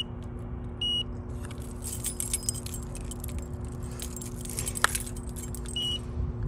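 Keys jangling on a keyring as a key fob is held against a door access-card reader. The reader gives a short high beep twice, about a second in and near the end, over a steady low hum. The fob is not unlocking the door.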